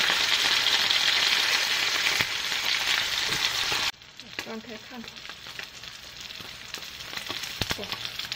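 Ribbonfish pieces sizzling as they pan-fry in shallow oil. The loud, steady sizzle drops suddenly to a quieter one about four seconds in, with a few light taps of chopsticks and spatula against the fish and pan.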